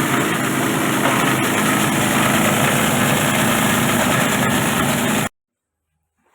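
Plastic bottle shredder machine running steadily with a dense, even mechanical noise; it cuts off abruptly about five seconds in, and a few faint knocks follow near the end.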